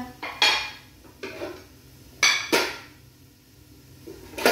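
Kitchenware clinking and knocking: about five separate sharp metal knocks, each with a short ring, as pots and utensils are handled.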